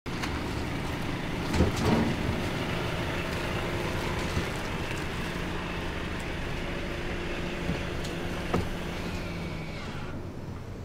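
Mercedes-Benz E-Class sedan running steadily with a low hum, with a few sharp knocks about two seconds in and one more near the end.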